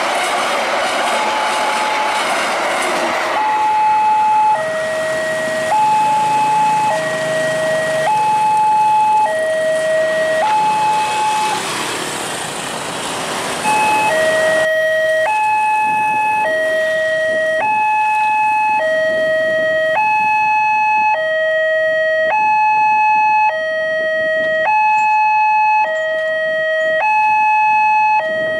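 Railway level-crossing electronic warning alarm sounding from a horn loudspeaker on the signal post: two tones, high and low, alternating about once a second, with a short break around the middle. It signals that the crossing is closed for a train. At first a passing passenger train's running noise is heard under it.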